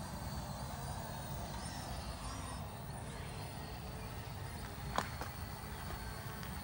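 Steady low outdoor background rumble, with faint high chirps about two seconds in and a single sharp click about five seconds in.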